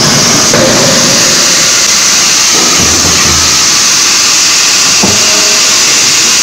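CNC hydraulic die forging hammer running, a loud, steady machinery noise with a strong hiss, while hot steel is forged. A short knock comes at the start and another about five seconds in, with a brief low rumble around three seconds.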